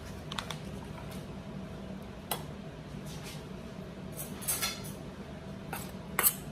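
Metal spoon clinking against a stainless steel funnel on a glass mason jar as ground cumin is worked through it. The sharpest clinks come near the end. Before them there are a few light clicks and a short rustle over a low steady hum.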